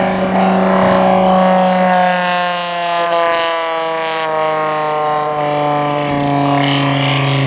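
A propeller race plane flying past at speed, its engine and propeller drone falling steadily in pitch as it passes.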